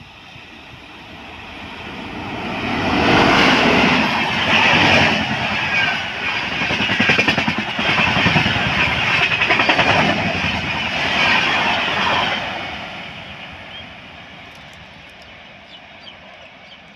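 Shatabdi Express passenger train, an electric locomotive with its coaches, passing close at speed: a rushing roar and rapid clatter of wheels over the rails. It builds over the first few seconds, holds loud for about nine seconds, then fades away as the train recedes.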